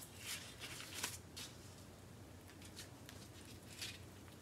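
Faint rustling and a few soft ticks of hands rolling up raw dough squares on parchment paper.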